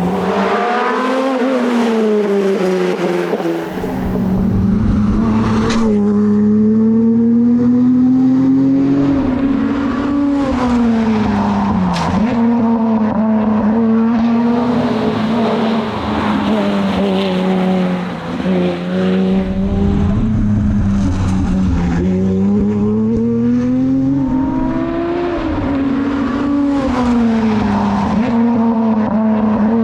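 Lotus Exige Sport 350's supercharged 3.5-litre V6 engine driven hard at racing pace, its pitch climbing through the revs and dropping back several times as the car shifts gear and slows for corners.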